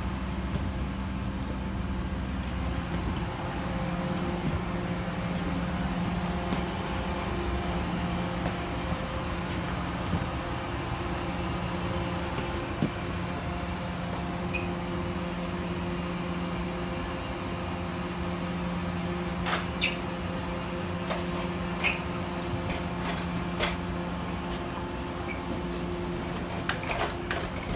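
Steady hum of a parked airliner's cabin air conditioning, with several sharp clicks and knocks in the last third.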